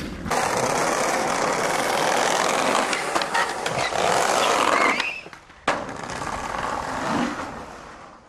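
Skateboard wheels rolling and trucks grinding on concrete, with the clatter of the board during tricks. After a brief lull about five seconds in there is one sharp crack of the board, then the sound fades out.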